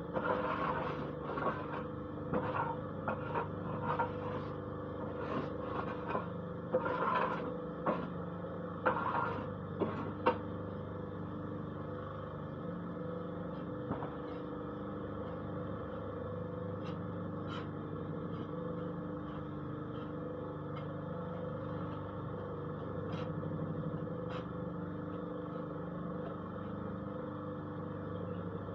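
Paving block press machine running with a steady motor hum, with a run of knocks and rattles over the first ten seconds or so, then only a few sharp clicks.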